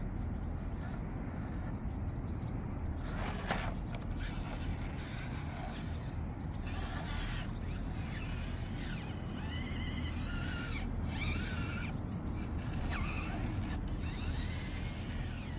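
Absima 1:18 scale mini RC crawler's small electric motor and geared drivetrain whining and creaking as it crawls, the whine rising and falling in pitch with the throttle, over a steady low rumble.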